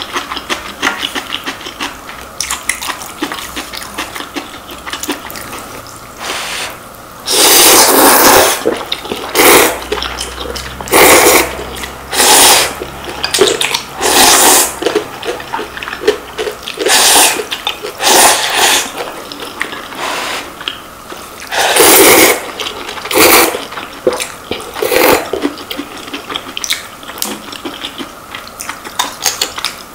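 Two people eating Shin Ramyun noodles, close-miked: small wet chewing and mouth clicks at first, then from about a quarter of the way in a run of about ten loud slurps of noodles and spicy broth, each about a second long.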